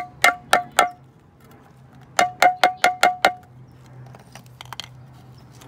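Claw hammer tapping the end of a 1¼-inch PVC pipe to drive a new mechanical shaft seal into a Pentair IntelliFlo pool pump's seal plate: four quick taps, a pause, then six more, each with a short ringing note.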